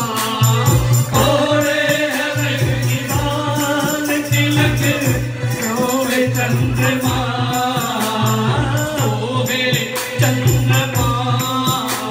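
Hindu devotional sankirtan singing: a male lead and group voices through microphones, with electronic keyboard accompaniment, a steady low drone and a regular percussion beat.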